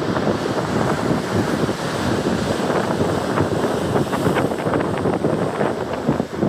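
Strong wind buffeting the microphone in constant gusts, over surf breaking on a shingle beach.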